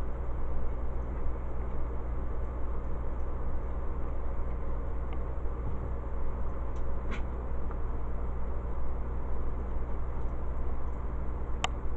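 Steady low hum with an even hiss over it, and two faint clicks, one about seven seconds in and one near the end.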